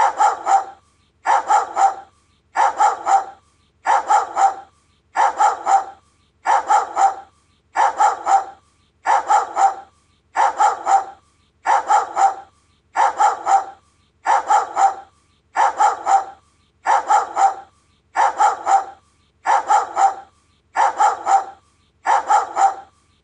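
Doberman barking in short bursts of two or three quick barks. The bursts repeat at an even rhythm, about one every 1.3 seconds, like a looped sound-effect recording.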